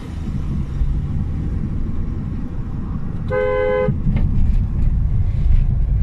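Car driving in city traffic, heard from inside the cabin as a steady low engine and road rumble. A little past halfway a two-tone car horn sounds once, for about half a second.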